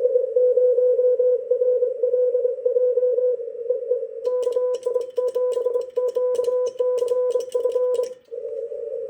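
Morse code (CW) keyed as a steady mid-pitched tone over the hiss of band noise in a narrow receiver filter. About four seconds in, the sharp mechanical clicks of a Vibroplex semi-automatic bug key join the tone as a call sign is sent, and they stop shortly before the end, leaving only band noise.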